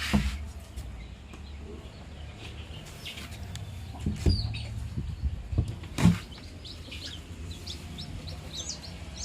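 Chickens clucking, with faint high chirps, a few sharp knocks and a steady low hum underneath.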